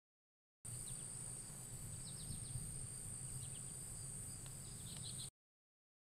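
Open-field ambience: a steady high insect drone over a low rumble, with small clusters of short bird chirps about two, three and a half, and five seconds in. It starts about half a second in and cuts off suddenly about a second before the end.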